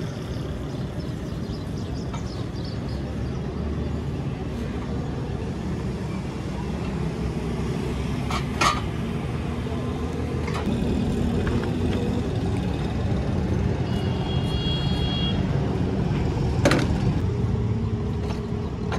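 Busy street ambience: a steady rumble of road traffic, with two sharp knocks about eight and a half and sixteen and a half seconds in, and a brief high-pitched tone about fourteen seconds in.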